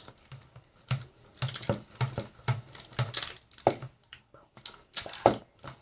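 Sticky slime being stirred with a spoon in a bowl: irregular wet clicks and squelches.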